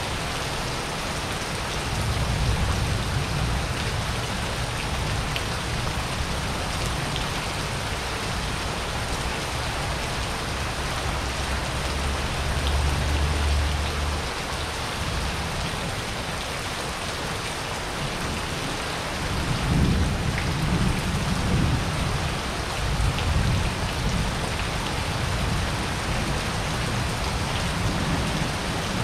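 Steady thunderstorm rain falling on a paved courtyard, with low rolls of thunder. One long rumble builds a couple of seconds in and fades after about twelve seconds, and a second, louder rumble starts about two-thirds of the way through.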